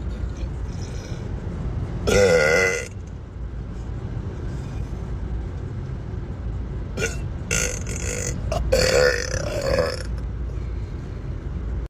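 A man belching: one loud burp, wavering in pitch, about two seconds in, then more belching from about seven to ten seconds in.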